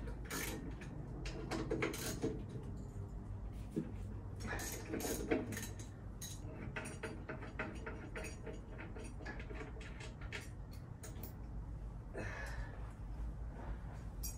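Scattered clicks and metallic clinks of hand tools working on a motorcycle's front end, with a quick run of clicks in the middle, over a low steady hum.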